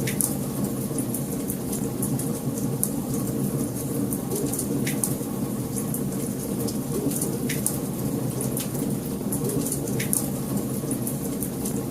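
Wood fire burning in a fireplace: a steady low rumble of flames with frequent sharp crackles and pops scattered irregularly through it.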